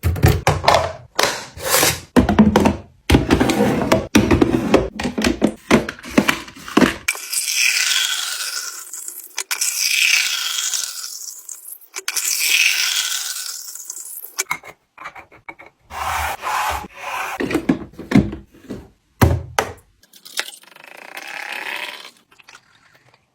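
Handling sounds of a kitchen gadget: quick rubbing, scraping and knocks, then a middle stretch of hiss that swells and fades three or four times, and scattered knocks again near the end.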